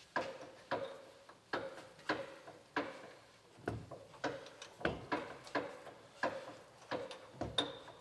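Regular metallic clicks, roughly three every two seconds, each with a short ring, from the rear brake of an AEC Routemaster bus as the wheel is turned by hand and its brake slack adjuster is wound up.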